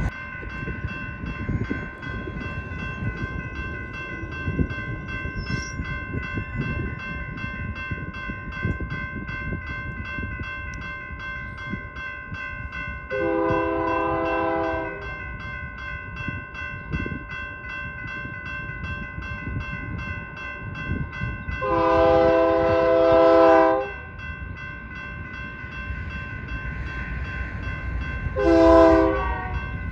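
A railroad crossing bell rings steadily at the grade crossing while an approaching freight train's locomotive air horn sounds a chord of several notes: two long blasts and then a short one near the end. This is the start of the standard long-long-short-long grade-crossing signal.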